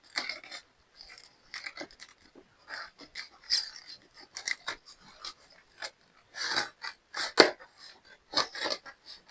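Irregular rustling and crinkling as a cardboard shipping box and its packing material are opened and handled, with louder crunches about two-thirds of the way through and near the end.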